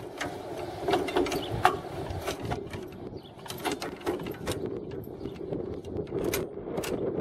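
Metal clicks and scrapes of a steel sickle-bar guard bar being worked into the cutter head of an Enorossi sickle bar mower, with a dozen or so sharp clicks scattered through, over a steady low hum.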